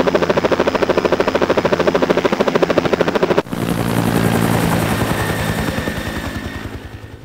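Small electric model autogiro's motor and propeller running with a fast rhythmic chop. The sound changes abruptly about three and a half seconds in to a steadier hum, then fades away near the end.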